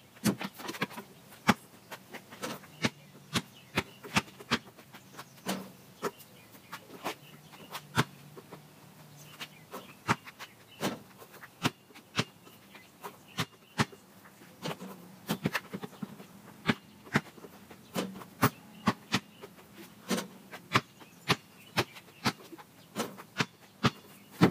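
Basketball bouncing on a paved driveway: a string of sharp thuds at an uneven pace, up to about two a second.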